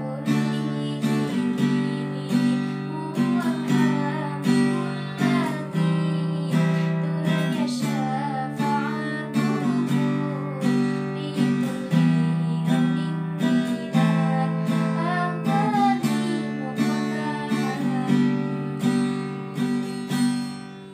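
Acoustic guitar strummed in a steady rhythm, about three strokes every two seconds, with the last chord ringing out and fading away at the end.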